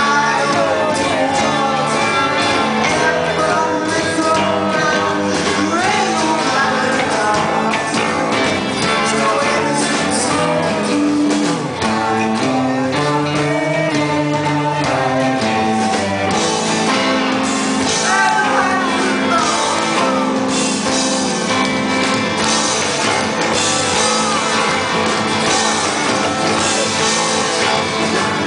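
Live band performing a song: a man singing over strummed acoustic guitar, electric guitar and drums, heard from the audience.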